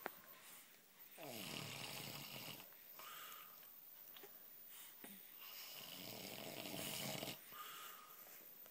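A man snoring in his sleep: two long rasping snores on the in-breath, each followed by a shorter out-breath, about four seconds apart.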